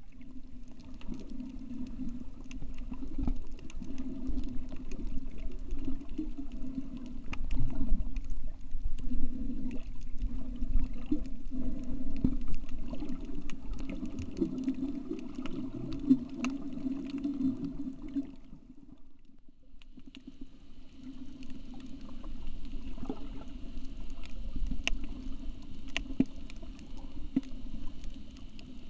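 Muffled underwater sound picked up by a camera held below the surface: a low steady drone with scattered sharp clicks. The drone drops away briefly about two-thirds through, then returns.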